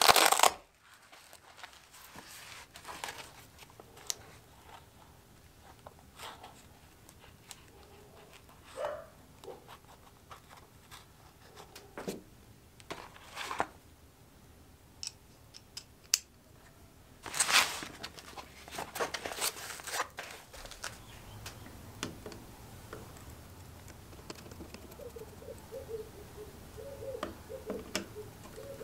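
Handling of a zip-up fabric screwdriver-bit case: fabric rustling and light clicks of small metal bits being picked out and fitted into a screwdriver handle. Near the end the screwdriver is turning a small brass screw on the spirit level, with faint repeated squeaks.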